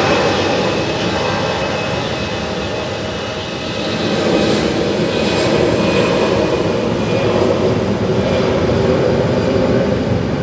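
Jet aircraft engines running at high power, a loud steady rush that swells again about four seconds in.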